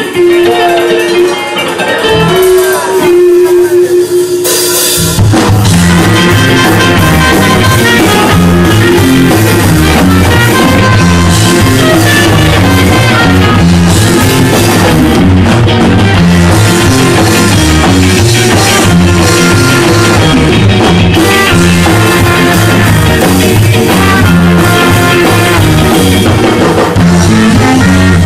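Live band playing a ska song loudly, with trombone, trumpet, electric guitar, bass and drums. It opens on a sparser passage with a long held note, and the full band with drums and bass comes in about five seconds in.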